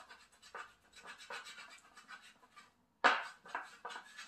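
Hand block plane shaving a hump of partly set Bondo body filler on a wooden board, a run of short scraping strokes. The strokes are faint at first, then louder from about three seconds in.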